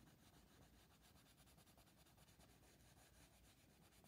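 Very faint scratching of a Derwent Coloursoft coloured pencil shading on paper, in light repeated strokes.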